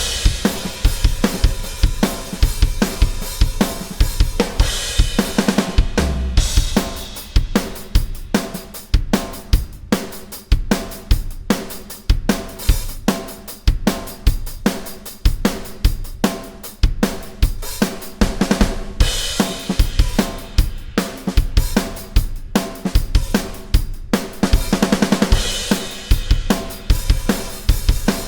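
A drum kit played on its own, without other instruments: kick drum, snare and hi-hat in a steady rock beat, with cymbal crashes ringing out a few times.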